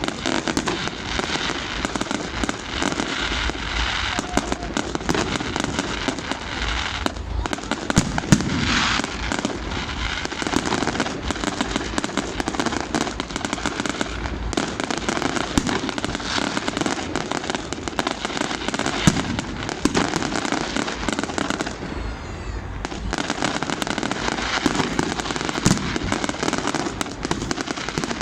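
New Year fireworks going off continuously: a dense crackle of many small bangs and pops, with a few louder bursts standing out.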